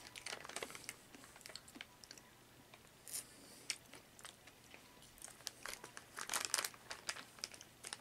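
Plastic snack wrapper crinkling as it is handled and pulled open, in scattered crackles that come thicker in the second half.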